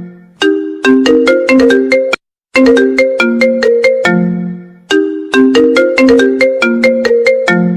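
The iPhone 14 Pro Max's original ringtone playing: a quick phrase of bell-like mallet notes that repeats about three times, with a short break between repeats.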